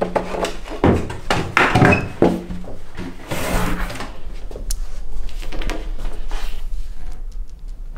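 Handling noise from a stand-up paddleboard being moved by hand: a few knocks and thuds in the first couple of seconds, then rubbing and lighter taps.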